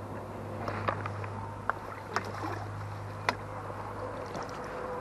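Water splashing and sloshing as a hooked carp is drawn into a landing net, with a few sharp clicks and knocks scattered through it.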